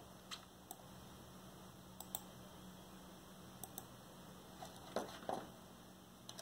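Faint scattered clicks of a computer mouse and keyboard, several in quick pairs, as text is selected and copied.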